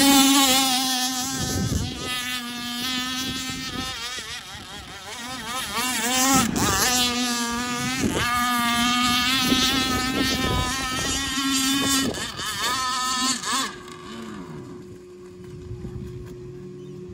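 Gas-powered RC speedboat's two-stroke engine running hard, its high buzzing note rising and falling again and again as the throttle changes through turns. Near the end it drops away to a faint steady hum.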